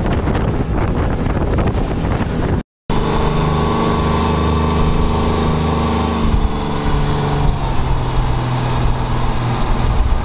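Boat running across open water, with wind buffeting the microphone over engine and hull noise. After a brief cut about three seconds in, the boat's engine hums steadily with several held tones, and the tones shift a little about six seconds in.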